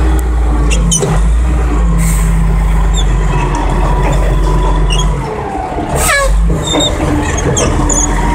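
Caterpillar 980F wheel loader's diesel engine running steadily with a low drone, heard from inside the cab, easing for a moment about five seconds in. Short hisses about two and six seconds in and faint squeaks come from the machine as the bucket works.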